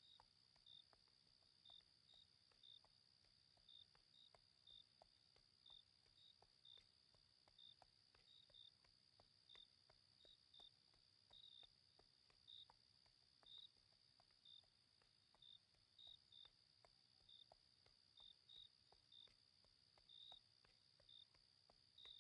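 Faint crickets at night: a steady high trill, with separate short chirps about twice a second at uneven spacing.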